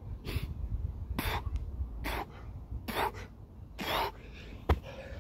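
A man breathing hard from exertion partway through a set of burpees and lunges: five sharp, forceful exhales a little under a second apart. A single sharp knock comes near the end.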